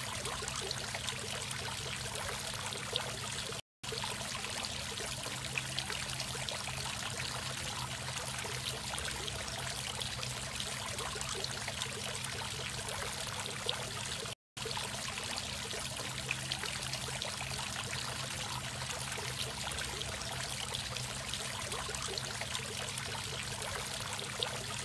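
Tiered stone garden fountain running: water splashing and trickling steadily from the upper bowl into the lower basin, over a low steady hum. The sound cuts out briefly twice.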